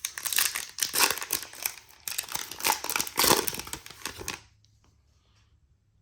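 Plastic trading-card pack wrapper crinkling and tearing as it is opened, for about four seconds, then stopping suddenly.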